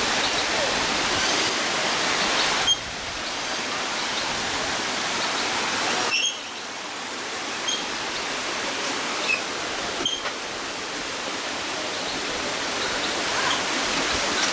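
Waterfall rushing steadily, a constant roar of falling water, with sudden drops in level where the footage is cut.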